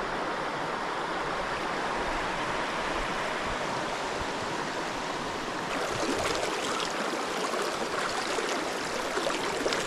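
Shallow mountain river running over stones: a steady wash of flowing water that grows a little louder and brighter about six seconds in.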